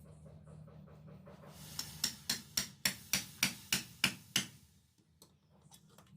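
A hand hammer strikes the steel of a dao blade forged from a car leaf spring about nine times, roughly three or four blows a second, each a sharp ringing metal strike, over a low steady hum.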